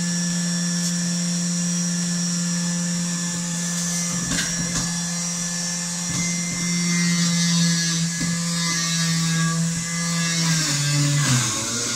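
Electric centrifugal juicer motor running at speed with a steady whine. Near the end its pitch drops and wavers as apples are pushed down the feed chute and the motor is loaded.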